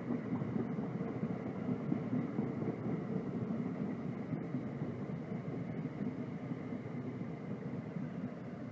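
Passenger train cars passing at speed: a steady rumble of wheels on rail that eases slightly near the end.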